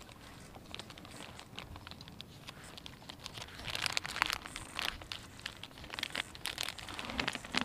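Plastic soft-bait packets crinkling and rustling in the hands as a soft-plastic crappie bait is taken out and threaded onto a jig. The crinkling is irregular and grows busier about halfway through.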